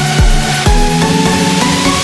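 Electronic dance music with a heavy kick drum about twice a second under sustained synth notes; the beat drops out about two-thirds of the way in.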